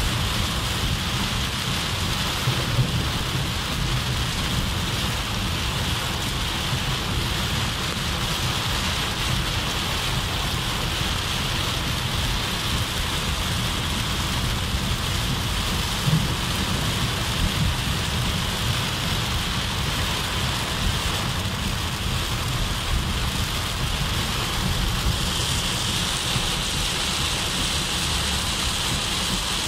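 Heavy rain drumming steadily on a car's roof and windscreen, heard from inside the car, with a steady low rumble underneath.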